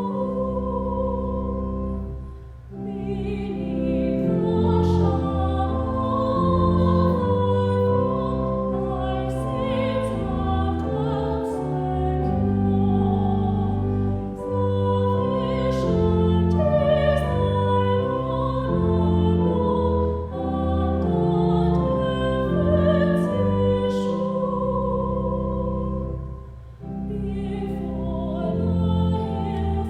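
A hymn anthem sung with instrumental accompaniment, moving in sustained chords. There are brief breaks between phrases about two and a half seconds in and near the end.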